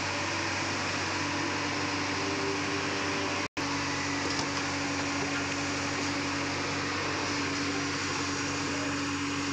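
JCB backhoe loader's diesel engine running steadily with a constant hum while its hydraulic arm handles a concrete pipe on a sling. The sound cuts out for an instant a few seconds in.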